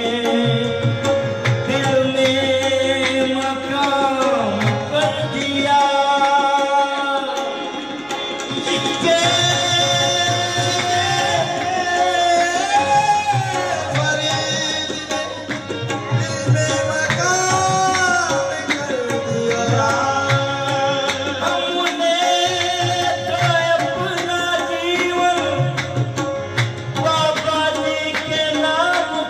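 Devotional qawwali-style music: a voice singing long, gliding phrases over tabla drumming, with steady held notes underneath.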